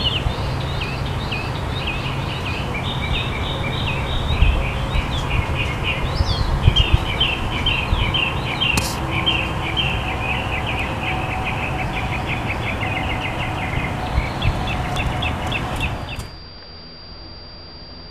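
Many small birds chirping busily over a low steady rumble. About sixteen seconds in, the sound drops to a quieter hiss with a faint high steady tone.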